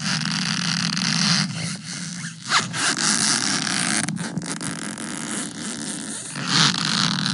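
Dense, harsh scratching noise that cuts in abruptly, with a steady low hum beneath it and two louder swells, one about two and a half seconds in and one near the end.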